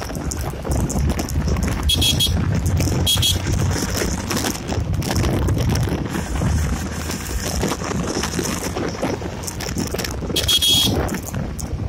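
Wind buffeting the microphone over the running single-cylinder engine of a Yamaha Gladiator motorcycle riding through traffic. Three short high-pitched sounds cut in, about two seconds in, about three seconds in, and near the end.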